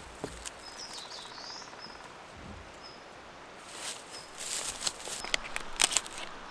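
Outdoor ambience with a small bird chirping briefly about a second and a half in. In the second half comes a run of rustles and several sharp clicks of something being handled close by.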